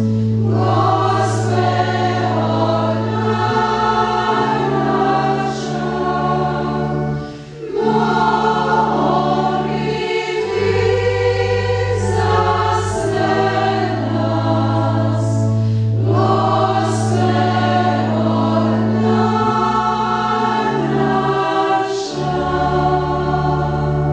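Choir of women religious singing a Croatian Marian hymn over sustained organ chords, with a short breath between phrases about seven seconds in.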